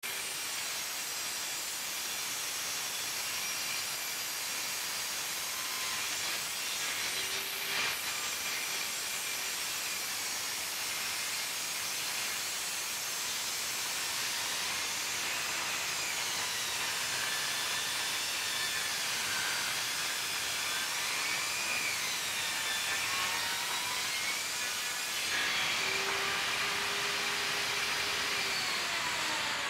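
Table saw ripping a Douglas fir board at an angle, a steady blade-through-wood noise with a whine that wavers up and down over it.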